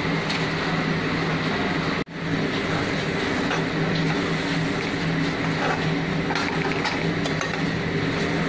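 Steady hum and hiss in a kitchen, with a few faint light clicks as a spoon stirs prawns into thick masala in a metal kadai. The sound drops out for an instant about two seconds in.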